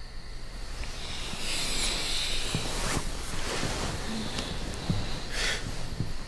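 Breathy sighs from a couple embracing in bed: a long exhale about a second in and a shorter one near the end, with a few soft knocks of movement.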